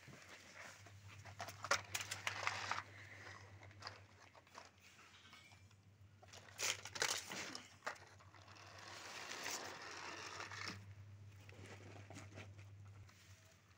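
Plastic toy trucks and toys being handled: scattered plastic clatters and rustling, over a faint steady low hum.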